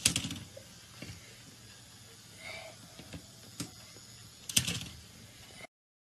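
Walking toy robot's plastic mechanism and legs clicking and clattering on a wooden floor, in a few short clusters of rapid clicks. The sound cuts off abruptly near the end.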